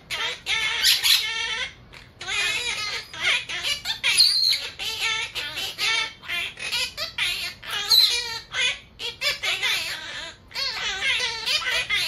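Monk parakeet chattering in a run of quick, speech-like phrases, a pet parrot mimicking human talk in a high, squeaky voice with short breaks between bursts.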